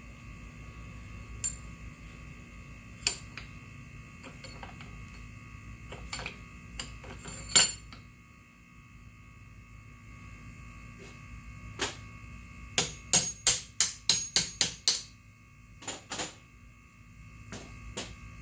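Hammer tapping the center shaft out of a gas scooter's jackshaft, metal striking metal: a few scattered single taps, then a quick run of about nine sharp strikes at roughly four a second, and a couple more after. A steady hum runs underneath.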